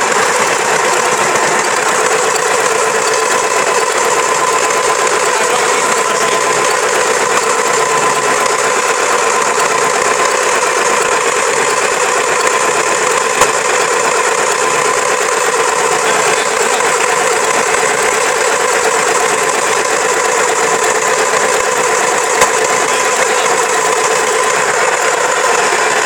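Large diesel engine, freshly started and running loud and steady on a bare stand with no exhaust pipe fitted to its turbocharger.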